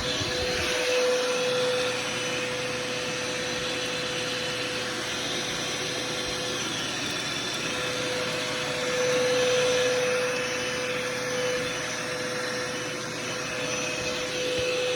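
Eureka The Boss Power Plus upright vacuum cleaner running steadily with a constant whine, drawing air through its hose attachment, its pitch and loudness swelling slightly twice as the hose is moved.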